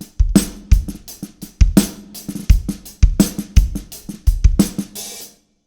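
A drum kit groove with ghost notes on a snare fitted with a Big Fat Snare Drum Snare-Bourine Donut pad, whose jingles rattle along with the snare strokes over the kick drum and cymbals. The playing stops abruptly near the end.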